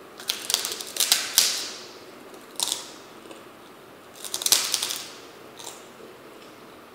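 Bites crunching into a giant crisp kerupuk, an Indonesian fried cracker: a quick run of sharp crackling crunches in the first two seconds, a single crunch a little later, then another run of crunches about four to five seconds in.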